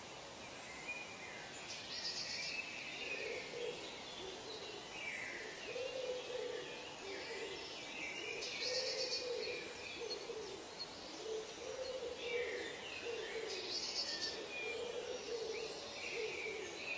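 Forest birdsong: a low hooting call of about a second repeats about every three seconds under higher chirps and whistles, with a short buzzy trill about every six seconds.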